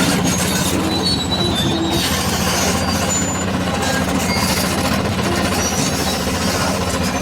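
Hyundai R480LC excavator's diesel engine running at a steady speed, misfiring from a faulty injector.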